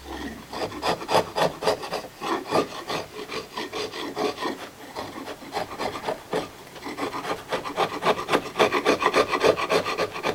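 A hand tool scraping on wood in quick, even back-and-forth strokes, like a rasp or sanding block shaping a wooden part.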